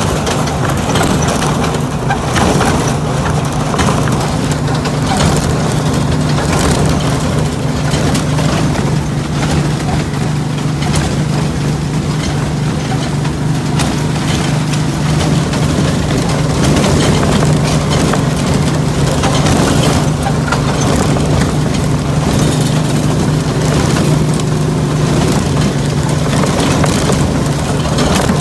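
Ride-on miniature train running along a leaf-strewn track: a steady low engine hum under the clatter and crunch of the wheels on the rails.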